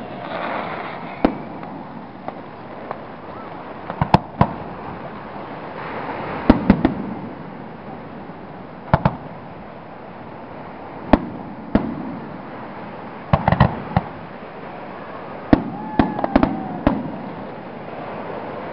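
Aerial fireworks shells bursting: a run of sharp bangs every few seconds, some coming in quick clusters of two or three, over a steady background hiss.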